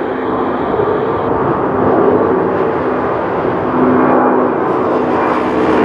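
Twin-engine jet airliner climbing out overhead just after takeoff, its engines at climb power: a loud, steady rush of jet noise with several steady humming tones running through it.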